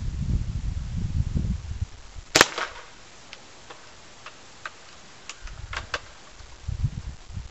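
One sharp crack of an L96 airsoft sniper rifle shot about two and a half seconds in, followed by a few faint ticks. Low wind rumble on the microphone at the start and again near the end.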